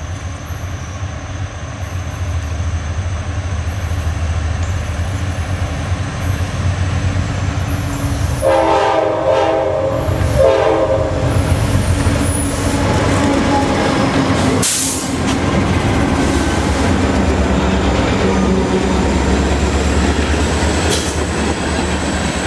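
HO scale model locomotive's sound playing a steady engine rumble, with two horn blasts about eight and ten seconds in, the second shorter, and a short burst of noise a few seconds later.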